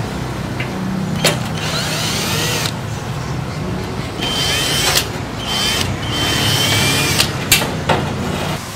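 Sharp metal clicks and clanks from a rusty steel amplifier case being handled as its panels are taken off, over a steady low hum.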